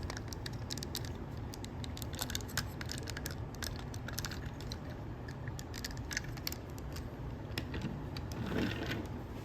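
Small plastic clicks and taps from a Transformers action figure in ambulance vehicle mode being handled, scattered irregularly over a low steady hum, with a short rustle near the end.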